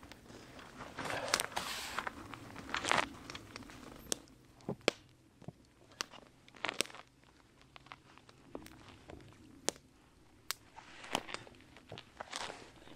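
Fabric rustling and handling noises as a winter vest is fitted onto a dog, with scattered sharp clicks throughout.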